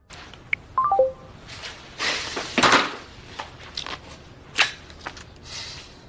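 A smartphone gives a short run of falling beeps as a call ends. Rustling and a few sharp clicks follow, the loudest rustle about two and a half seconds in.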